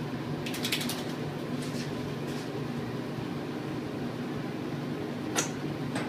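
Steady low mechanical hum of running equipment, with a quick run of light clicks about half a second in. A sharp knock near the end as the plastic shampoo bottle is set down on the stainless-steel tub.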